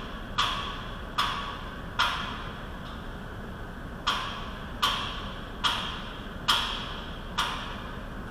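Sharp clicks at an even pace, about one every 0.8 seconds, each with a short ring, stopping a little before the end.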